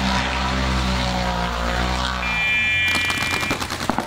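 A steady low drone with a slowly wavering pitch. About two seconds in, a high steady tone sounds for about a second. Near the end, a rapid volley of paintball marker shots breaks out, many sharp cracks a second.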